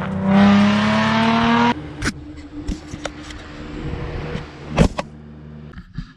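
An engine revving up, its pitch rising steadily for about a second and a half, then cut off abruptly. After the cut comes a quieter steady engine hum inside a motorhome's cabin, with scattered clicks and knocks, one louder knock near the end.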